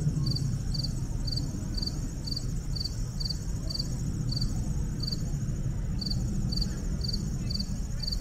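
A cricket chirping steadily, about two short high chirps a second, over a steady low rumble.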